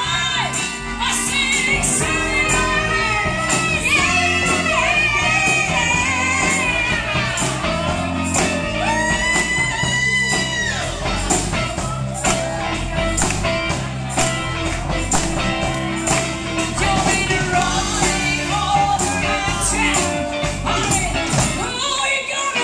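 Live rock band playing a song: electric bass, electric guitar and a drum kit with a steady beat, under several voices singing together.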